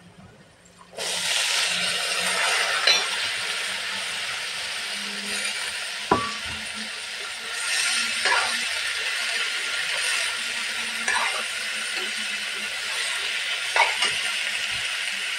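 Chopped vegetables tipped into hot oil in an aluminium kadai, setting off a loud, steady sizzle about a second in. A metal spatula scrapes and knocks against the pan every two to three seconds as the mix is stirred.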